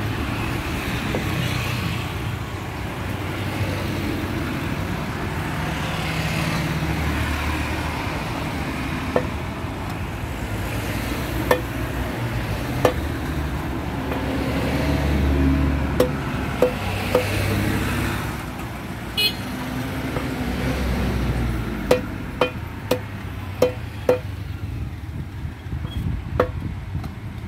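Large knife chopping catfish on a wooden log block: sharp knocks, single ones at first and then a quick run of about five near the end, over a steady rumble of passing road traffic.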